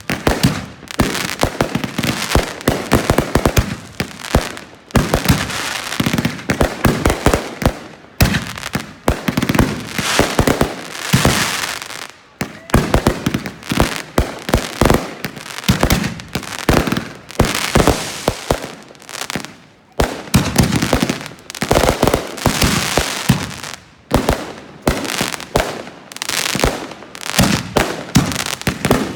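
Fireworks going off in a dense barrage of rapid bangs, with a few short lulls.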